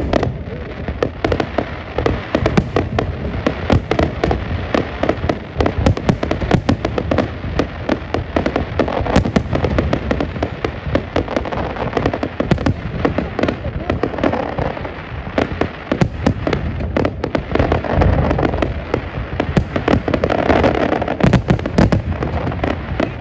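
Fireworks display: a dense, irregular barrage of bangs and crackles from aerial shells going off in quick succession, with a low rumble of bursts beneath, and voices of onlookers in the background.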